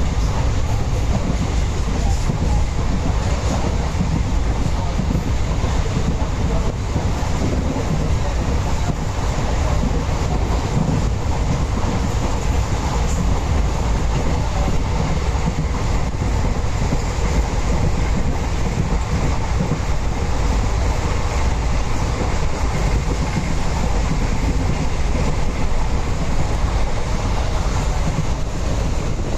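Express train running at speed, heard inside a passenger coach with its windows open: a steady rumble of the wheels on the track.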